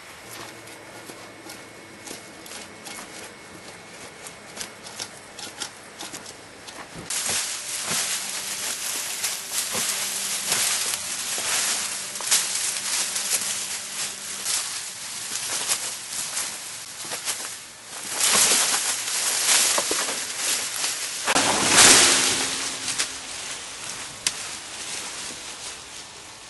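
Leafy branches and twigs rustling and crackling, full of small sharp snaps. Faint scattered clicks at first, then the rustling sets in about seven seconds in and swells twice in louder surges later on.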